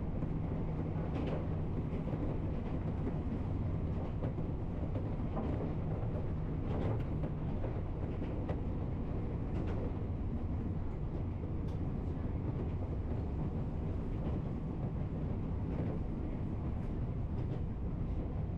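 Train running: a steady rumble with a low hum and scattered faint clicks.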